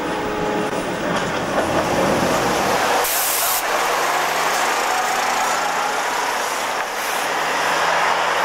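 Chemins de fer de Provence diesel railcar running at a standstill, with a short burst of compressed-air hiss about three seconds in.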